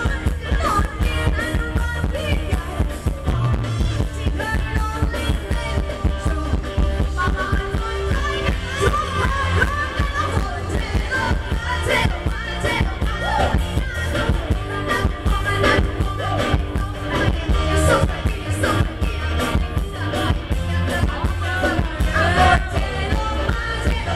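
Live Thai ramwong band music played loud through a PA system, with singing over a heavy, steady beat.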